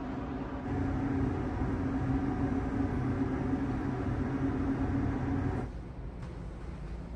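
Steady machinery drone aboard a car ferry: a low hum with a few held tones under a noisy wash. About five and a half seconds in it drops suddenly to a quieter, lower hum.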